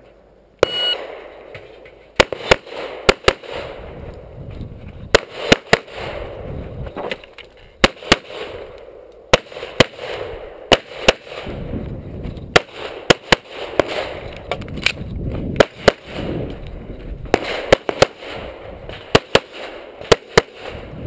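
A competition shot timer beeps once, just under a second in, and a handgun then fires many loud shots, mostly in quick pairs and short strings with brief pauses between strings.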